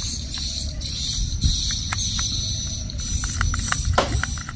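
Small plastic clicks and taps as a screwdriver is worked into the screw of a plastic toy locomotive's battery cover and the toy is handled. The clicks come more thickly near the end, over a steady high-pitched buzz.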